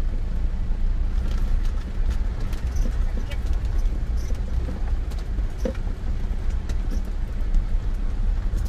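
Elf 4x4 campervan driving over a broken, potholed road, heard from inside the cabin: a steady low engine and road rumble with scattered small knocks and rattles.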